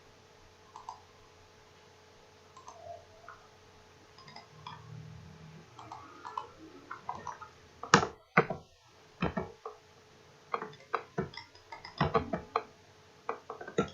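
Computer mouse clicking irregularly, the clicks coming faster and louder in the second half, over a faint steady electrical hum.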